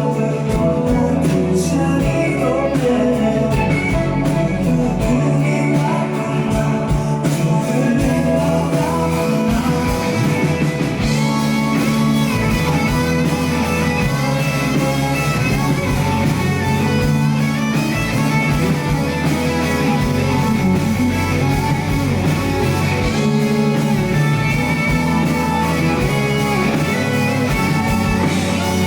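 Rock band playing live: an instrumental passage with electric guitar to the fore over bass and drums.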